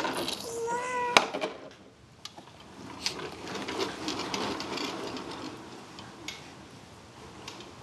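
Plastic toys on a baby's activity center clicking and rattling as the baby handles them, with a sharp clack just after a second in and scattered clicks for a few seconds after. A brief high-pitched sound comes just before the clack.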